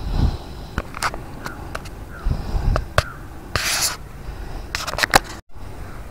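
Close handling noise as a frog lure's hooks are worked out of a snakehead's mouth by hand: scattered small clicks, scrapes and knocks, with a short rushing noise a little before four seconds in. The sound cuts out for a moment about five and a half seconds in.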